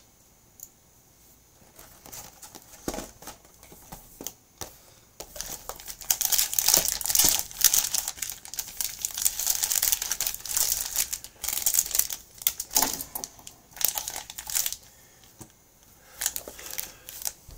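Plastic trading-card packaging crinkling and tearing as it is handled and opened: scattered crackles at first, a dense stretch of crinkling through the middle, then a few more crackles near the end.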